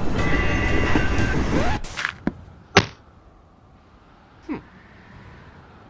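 Background music that cuts off suddenly a little under two seconds in, followed by a few sharp impact knocks, the loudest just before the three-second mark, and one more knock with a falling pitch about a second and a half later: crash effects for a toy train tipping off its track.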